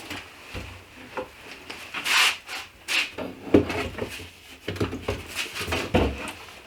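A wooden cabinet being shifted and handled, making irregular scraping and a few knocks of wood on wood.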